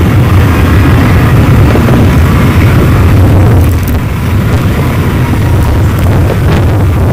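Harsh noise music: a loud, dense wall of distorted noise over a heavy low rumble, easing slightly about four seconds in.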